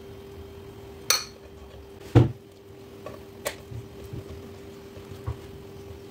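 A metal spoon clinking against ceramic a few times, the loudest knock about two seconds in, followed by a few softer taps.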